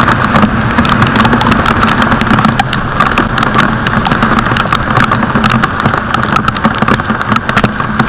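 Motorcycle engine running at a steady speed under a loud rush of wind noise, with many small ticks throughout.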